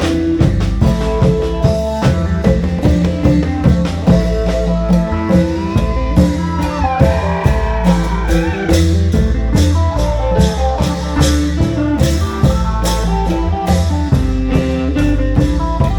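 Isan folk band music: a fast, steady drum beat under a plucked phin lute melody, with sustained reed-like notes.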